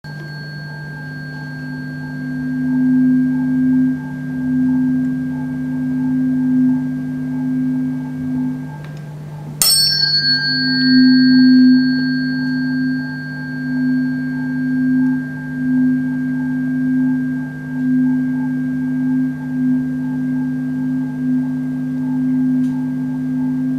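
A 256 Hz (C) tuning fork rings over the open end of a resonance tube. Its tone swells and fades several times as the tube length is changed through resonance. About ten seconds in, the fork is struck again with a sharp click and a brief high ring, under a steady lower hum.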